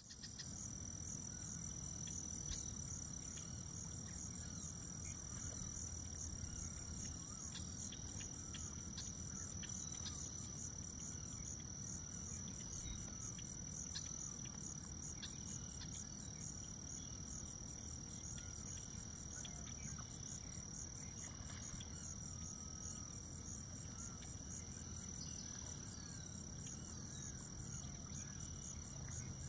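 Steady, high-pitched insect chorus trilling on one pitch, with scattered faint chirps and a low background rumble of outdoor ambience.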